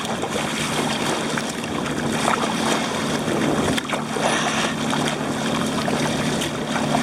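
Water sloshing and splashing around a sea kayak paddled hard through choppy water, with a low steady hum underneath.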